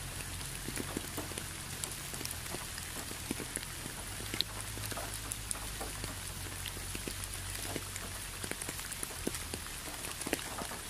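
Steady rain: an even hiss of falling water with many separate drops striking close by as short sharp ticks, over a low steady rumble.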